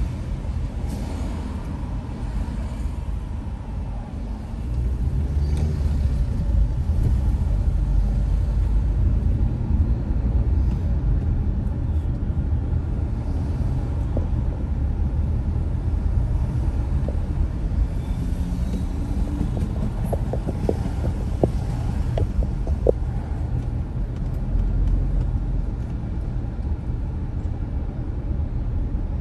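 A car driving, with a steady low rumble of engine and road noise that grows louder about five seconds in. A few light clicks come about two-thirds of the way through.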